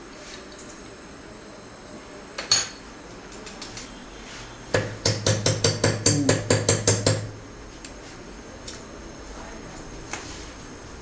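Metal struck with a hammer: one sharp knock, then a quick run of about a dozen strikes, about five a second, with a low hum underneath.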